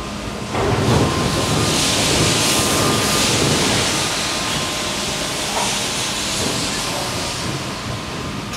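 Air shower's high-velocity nozzles blasting air: a loud, hissing rush of air that starts suddenly about half a second in and then slowly eases off.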